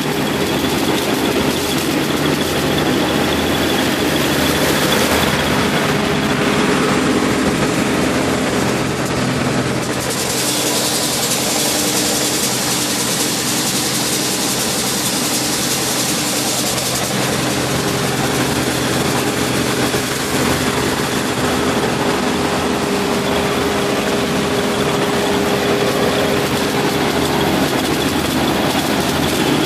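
Claas Dominator 78 combine harvester running steadily while harvesting corn: a diesel engine hum under a steady high whine from the machinery. A brighter rushing hiss rises over it from about ten to seventeen seconds in.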